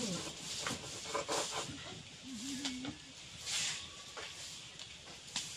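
Ladle clinking against the metal batter pot and clay pan, and pitha batter hissing as it is poured into the hot clay mould, about three and a half seconds in. A short wavering animal call sounds about two and a half seconds in.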